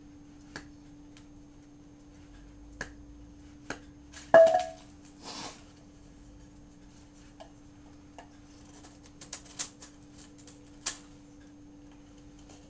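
Folding knife with an S30V blade cutting into a wooden 2x2. It makes scattered sharp clicks and snaps of the blade biting the wood, with the loudest crack about four seconds in, which rings briefly, and a quick run of clicks near the end. A steady low hum sits underneath.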